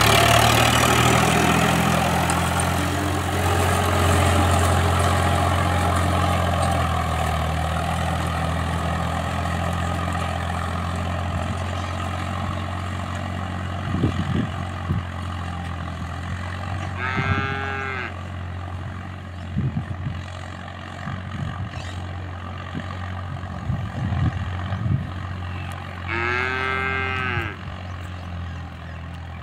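Indo Farm diesel tractor engine running steadily as it works across the field, slowly fading as it drives away. Cattle moo twice, about halfway through and again near the end.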